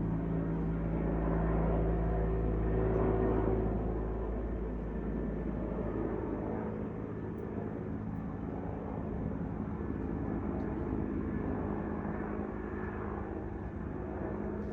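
A steady engine drone with a low hum, loudest in the first few seconds; its deepest tones drop away about six seconds in and it carries on more softly.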